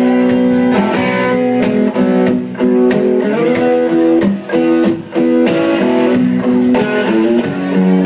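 A live band playing a country song, led by guitar chords over a steady beat of about two strokes a second.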